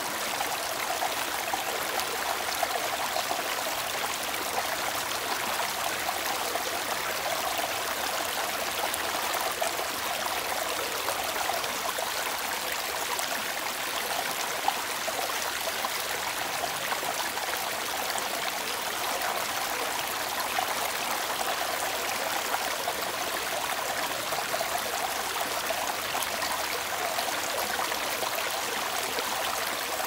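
Shallow rocky stream with water rushing and splashing over small cascades between boulders, a steady babbling rush.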